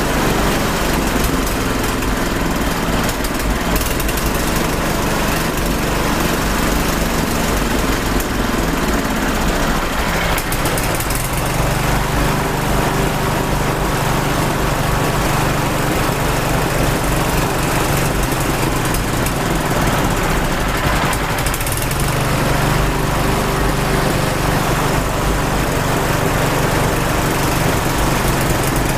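Engine running steadily on a water-based fuel mixture, its note shifting slightly twice along the way.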